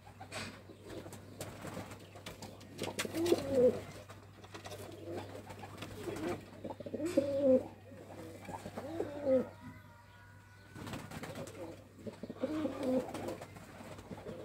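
Domestic pigeons, white Turkish dolapçı roller pigeons, cooing, with a low throaty coo phrase every few seconds.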